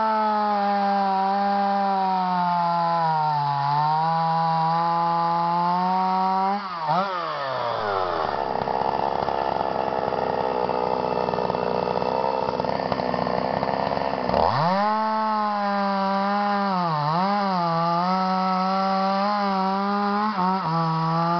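Stihl two-stroke chainsaw cutting through a log at full throttle, its pitch sagging a little under load. About seven seconds in it drops to a low idle, then revs back up about halfway through and cuts again, dipping briefly each time the chain bites.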